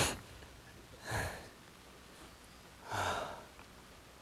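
A man's heavy, audible breaths: three sharp puffs, one right at the start, one about a second later and one near three seconds, as he catches his breath.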